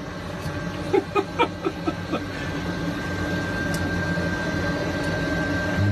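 Steady machinery hum inside a submarine's cabin, with a thin high whine coming in about halfway through. A quick run of short, sharp clicks sounds about a second in.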